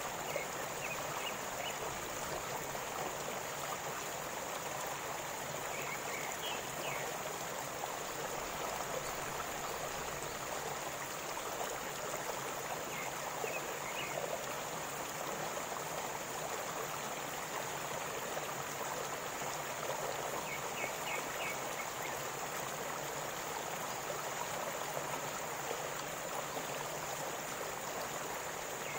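Waterfall and river water rushing steadily.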